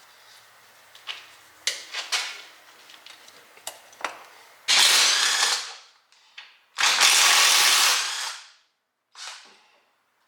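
A handheld power tool run on bolts in short bursts: two loud bursts of about a second each and a shorter one near the end, after a few sharp clicks of tools being handled.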